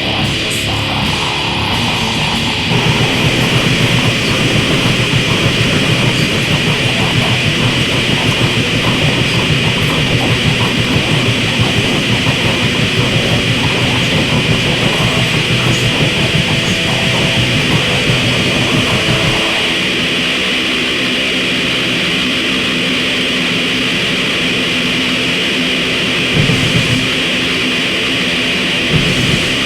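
Death grind / noise grind music: a loud, distorted wall of guitar noise over dense, fast-hitting low end. About two-thirds of the way in the fast low end drops out, leaving a steadier droning noise with a few scattered hits near the end.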